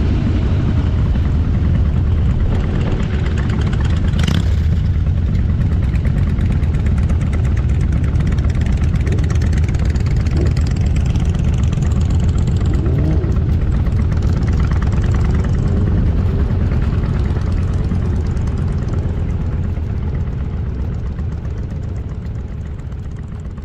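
Motorcycle engine running steadily under way, with a dense low engine sound and a rushing noise above it. A brief sharp noise comes about four seconds in, and the engine sound dies away over the last few seconds.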